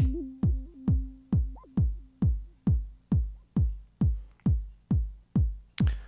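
E-mu MP7 Command Station playing an electronic kick drum on every beat, a little over two kicks a second, each kick dropping in pitch. A held synth note sounds under the kicks for the first half and then stops.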